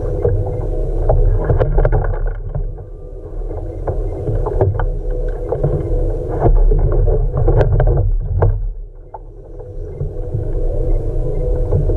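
Repeated sharp knocks and thumps on a kayak's hull over a steady low rumble and hum, with a quieter stretch a little after halfway.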